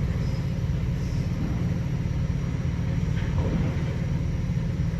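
Steady low rumble of an idling semi truck's diesel engine.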